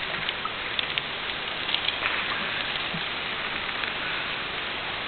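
Steady, even background hiss with a few faint clicks in the first two seconds; no speech.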